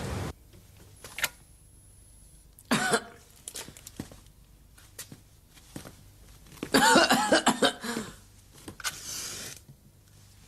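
A person coughing in a quiet room: a short cough about three seconds in, then a longer, louder coughing fit around seven seconds in, with small knocks and rustles between.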